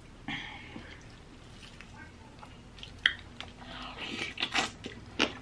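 A person chewing boiled seafood close to the microphone: wet mouth sounds and scattered sharp clicks, busiest in the last couple of seconds.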